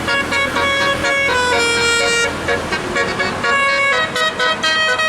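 A bus's telolet musical horn playing a quick tune. Several horn tones sound together and step from note to note every fraction of a second, with brief breaks in the sound after about three and a half seconds.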